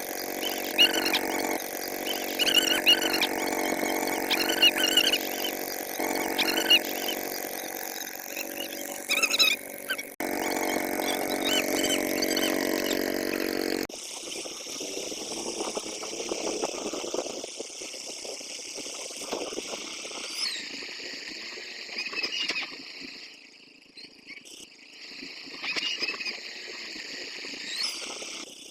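A boat engine running steadily, with high chirps repeating over it; about fourteen seconds in it cuts to a quieter outdoor scene where the engine is gone and only chirps and faint noise remain.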